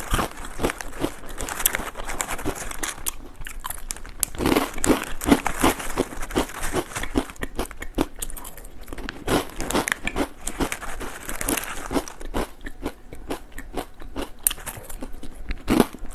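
Crisp potato chips being bitten and chewed, a dense run of irregular crunches and crackles; the chips are cucumber-flavoured.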